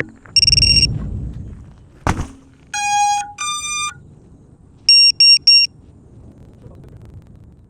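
Electronic status beeps from an FPV racing drone's gear as it is powered up and readied: a high beep over rustling near the start, a click about two seconds in, a lower beep followed by a higher one about three seconds in, and three short high beeps about five seconds in.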